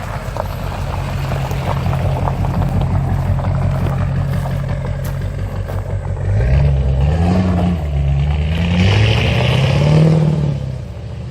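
A car driving past close by on a dirt trail, its engine running steadily, then accelerating from about halfway through with the engine pitch rising and falling a few times. It is loudest just before the end, then fades as it pulls away.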